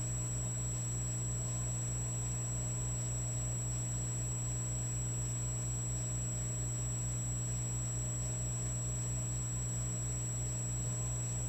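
Electric fireplace log set running: a steady electrical hum and buzz with a thin high whine, over a low throb that pulses several times a second.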